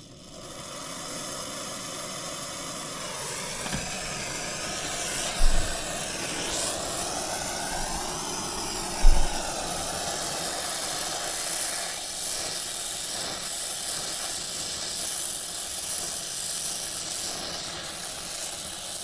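Oxygen-fuel brazing torch burning with a steady hissing rush as a copper refrigerant line joint is brazed; the flame noise builds up within the first second or two. Two short low thumps come about five and nine seconds in.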